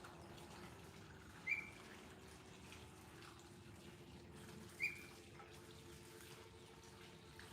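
A bird's short, high chirp, given twice about three seconds apart, over faint steady background noise.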